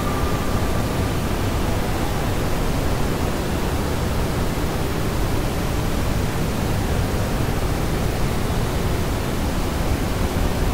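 Steady, even rushing noise like loud hiss, heaviest in the low end and without any rhythm or change, playing back from a multitrack audio project. A faint high tone fades out about a second in.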